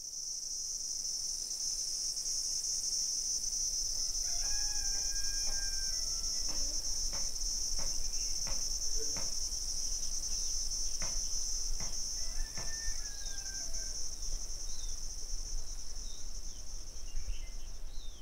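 A steady, high-pitched chorus of insects shrilling without a break. A few faint clicks come through in the middle, along with two faint drawn-out calls, one about four seconds in and one about twelve seconds in.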